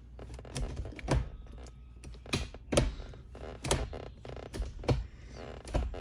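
Gear shift lever of a 1994 BMW E36 325i, newly fitted with a short shifter, being moved through the gears: a string of sharp, irregular clicks and clunks as it drops into each gate.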